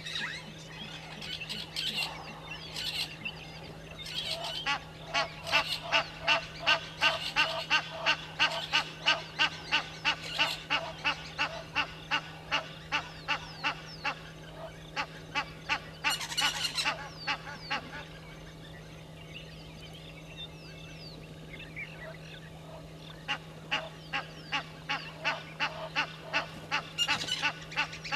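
Blacksmith lapwings calling: long runs of sharp, metallic "tink" notes, about four a second, pausing for several seconds midway and starting again near the end.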